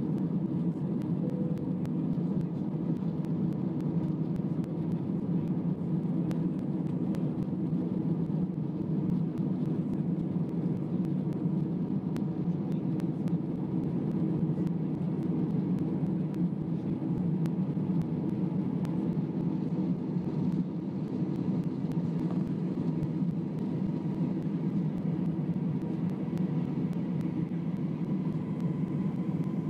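Airbus A320 cabin noise during the climb after takeoff: engine and airflow noise make a steady low rumble, with a faint steady high tone above it.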